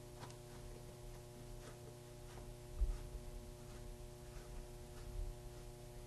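Faint clicks and scrapes of a hand screwdriver turning mounting screws into a car door's interior grab handle, with a soft thump about three seconds in, over a steady low hum.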